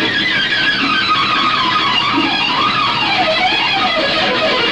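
Electric guitar lead played on a Stratocaster-style guitar, a singing solo line with wavering vibrato. The line slides down in pitch through the middle and climbs again near the end.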